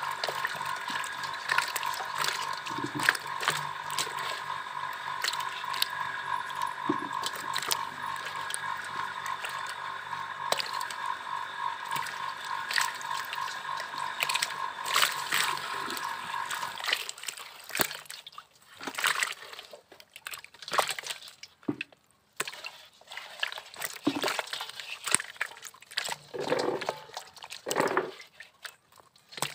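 Live climbing perch flapping and splashing in a shallow tub of water, irregular wet slaps and sloshes. A steady hum runs underneath and stops a little over halfway through.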